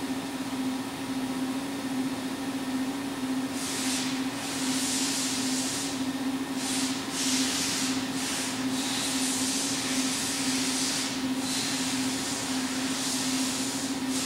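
Mitsubishi FX10 wire-cut EDM machine running: a steady hum throughout, joined about three and a half seconds in by a hiss that breaks off briefly several times.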